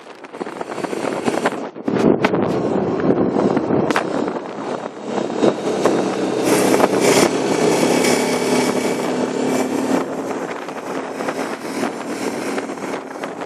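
Quad bike engine running under way on the road, with steady engine drone and a hiss of wind and road noise; it gets louder about two seconds in.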